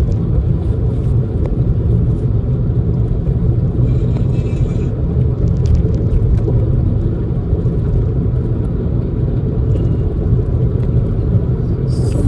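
Steady low rumble of a car on the move, heard from inside the cabin: engine and tyre road noise.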